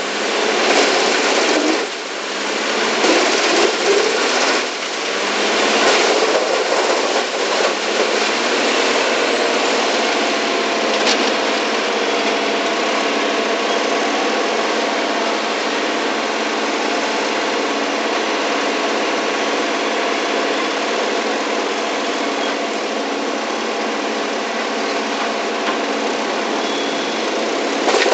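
Bandit Model 2290 wood chipper shredding hardwood, the sound surging and dipping unevenly for the first eight seconds or so as wood goes through. After that it settles into the steady running of the chipper's engine.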